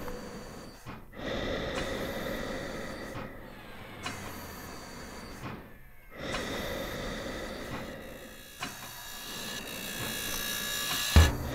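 Slow breathing through an oxygen mask: four long breaths, one every two to three seconds, over a faint steady hum. A single sharp thump comes near the end.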